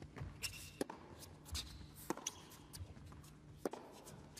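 Tennis ball struck by rackets in a baseline rally: three sharp hits about a second and a half apart, with players' shoes scuffing on the hard court between them.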